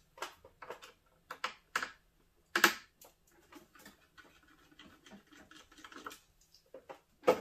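Irregular small clicks and knocks of hands working the plastic cover off an electronics enclosure, with a sharper knock about two and a half seconds in and another near the end.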